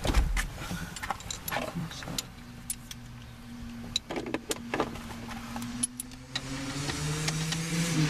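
Hand tools clinking and tapping, then a motor vehicle's engine hum that slowly rises in pitch and grows louder, with a second, higher note joining near the end.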